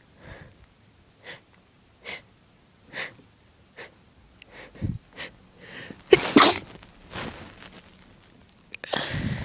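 A person working up to a sneeze, with short catching inhales about once a second, then a loud sneeze about six seconds in. A breath follows, and another loud breathy burst comes near the end.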